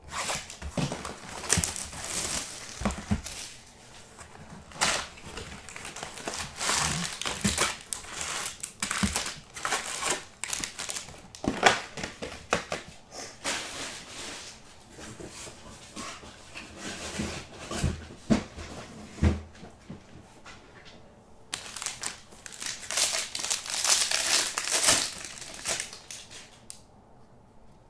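Plastic shrink wrap and card-pack wrappers crinkling and tearing as a hobby box of baseball cards is unwrapped and its packs handled, in irregular crackles. The densest, loudest crinkling comes near the end, when a pack wrapper is torn open.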